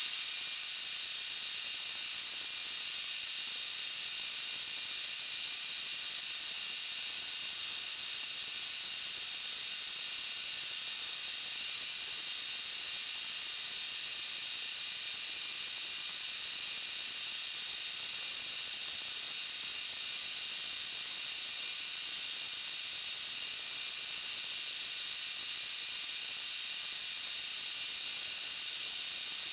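Milling machine end mill cutting steadily as it faces a cast eccentric strap: an unchanging high-pitched whine over a hiss.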